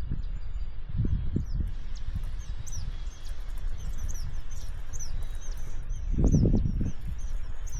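Small birds chirping: many short, high, down-slurred notes repeated throughout. Under them runs a steady low rumble that swells briefly about six seconds in.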